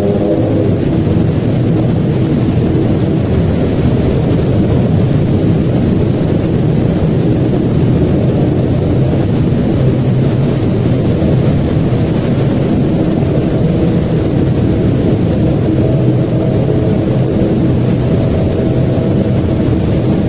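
A loud, steady low rumble with faint held tones above it, unchanging throughout.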